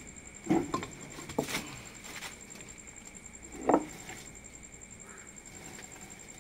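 Bricks and stones knocking and scraping as a rubble pile is shifted by hand: a few short clatters in the first second and a half, and the loudest knock about three and a half seconds in.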